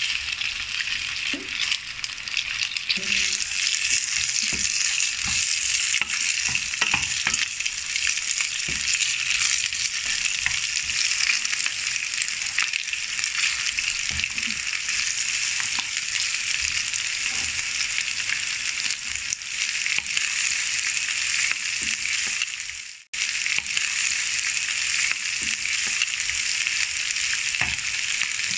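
Chicken pieces and chopped vegetables sizzling steadily in a hot wok while being stirred with a wooden spoon, with occasional soft knocks as the spoon moves through the pan. The sizzle drops out for a moment about three quarters of the way through.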